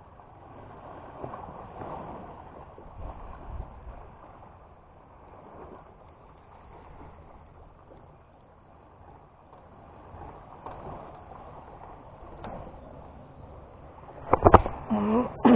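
Sea waves washing and surging against a seawall, a steady rush of water that swells and eases every few seconds, with some wind on the microphone. Near the end, a sharp knock and a brief louder burst of sound.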